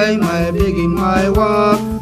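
Choir gospel song: voices and a melody over instrumental backing with a steady beat.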